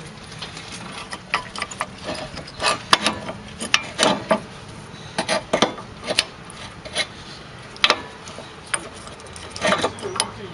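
Hand tools and metal brake parts clicking, knocking and scraping at irregular intervals during brake caliper work.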